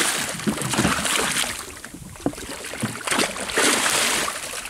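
A hooked wahoo thrashing at the surface beside a small wooden boat, throwing up water in two bouts of splashing, with a few sharp knocks between them.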